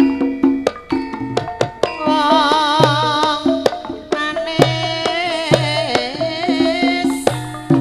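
Javanese gamelan accompanying a tayub dance: kendang hand drums play a quick run of pitched strokes, over sustained metallophone tones. From about two seconds in, a woman sings a wavering, ornamented line with heavy vibrato.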